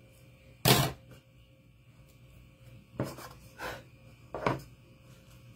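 Craft tools and a metal baking pan being handled on a cutting mat: one sharp knock under a second in, then three softer knocks a couple of seconds later as the pan is picked up.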